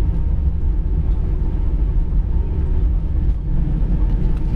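Steady low rumble heard inside the cabin of an Airbus A319 jetliner as it taxis on the ground after landing.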